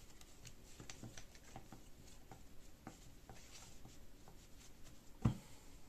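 A deck of tarot cards shuffled by hand: soft, irregular clicks and slides of cards against each other. About five seconds in there is a single louder dull thump.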